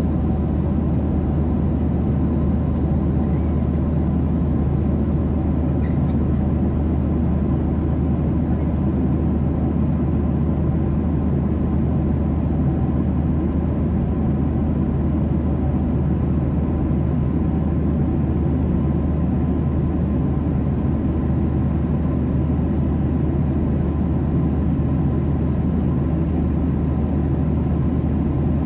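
Steady drone of a jet airliner's cabin at cruise altitude: constant engine and airflow noise, deep and even, with a faint steady hum above it.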